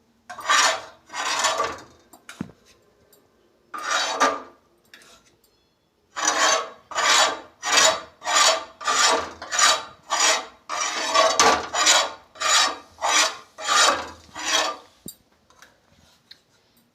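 A utensil scraping a sticky jaggery and ginger mixture off a hot tava griddle in repeated scraping strokes: two near the start, one about four seconds in, then a steady run of about two strokes a second from about six seconds in until shortly before the end.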